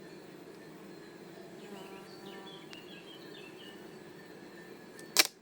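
Honey bees buzzing steadily around an opened hive, with a single sharp knock near the end.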